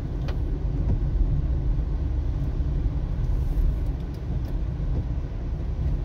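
Suzuki Swift driving on a wet road, heard from inside the cabin: a steady low rumble of engine and road noise.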